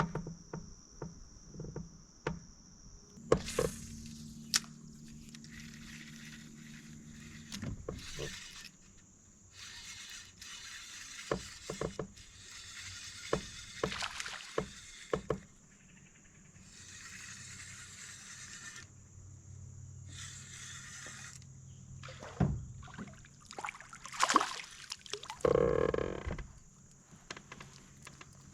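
A steady high insect drone, like crickets, with scattered sharp knocks and clatter of fishing gear handled in a small boat, and several short stretches of rustling noise.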